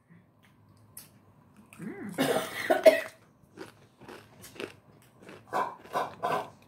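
A person coughing: one loud, rough cough about two seconds in, then a run of short coughs, about three a second.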